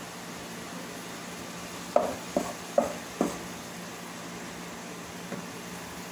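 Wooden spatula stirring ground chicken in a nonstick saucepan, with four quick knocks of the spatula against the pan about two to three seconds in and one lighter knock later, over a steady hum.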